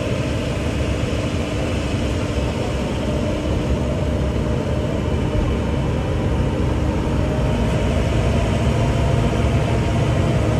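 Open-air safari tram running steadily while carrying riders, a constant low engine sound with a faint steady hum that grows slightly louder near the end.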